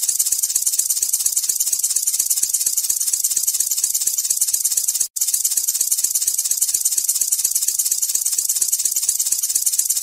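Snake-hiss sound effect: a steady, high hissing rattle pulsing several times a second, which breaks off for an instant about five seconds in before starting again.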